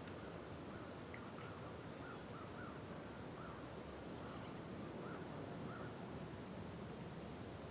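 Faint, quiet lake-morning ambience: a steady low hiss of open air. Over it, a bird gives a run of about eight short, repeated calls from about a second in until around six seconds.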